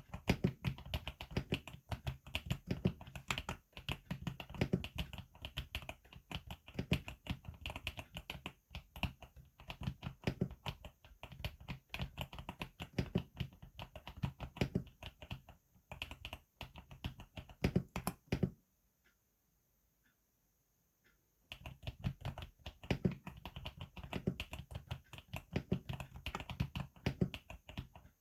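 Typing on a GMK67 mechanical keyboard with Akko Lavender switches, tape-modded and with added foam: a fast, steady run of keystrokes. About two-thirds of the way through it stops for about three seconds, then resumes.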